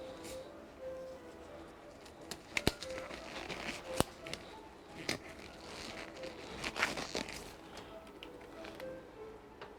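Crinkling and rustling handling noises, with two sharp clicks about a third of the way in, over faint background music.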